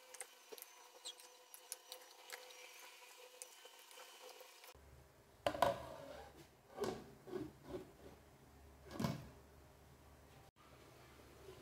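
Faint knocks and clatter of cookware: a wooden spatula against a granite-coated frying pan, and a glass pan lid being handled. The loudest knocks come about halfway through and again near the end.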